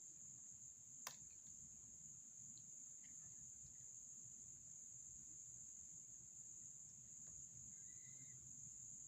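Near silence: room tone with a steady thin high-pitched hiss and a single faint click about a second in.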